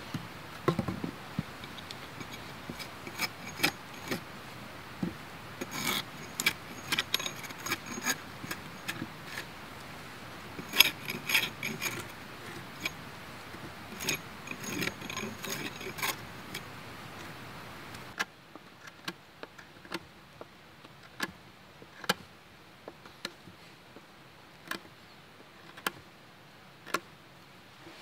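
Small metal objects clinking and jangling in bursts, with a ringing edge. About two-thirds of the way through, the background drops and single sharp clicks come roughly once a second.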